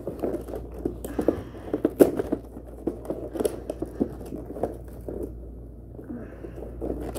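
Fingers scratching, picking and tapping at the edges of a cardboard toy box while trying to get it open: irregular scrapes, clicks and rustles.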